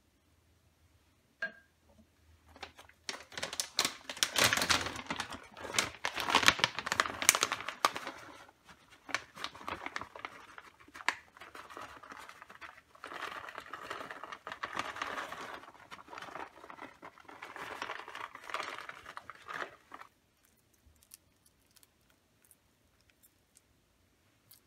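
Plastic bag of shredded cheese crinkling as it is handled and shaken out over a baking dish, in irregular rustling bursts. It is loudest about four to eight seconds in and dies away at around twenty seconds.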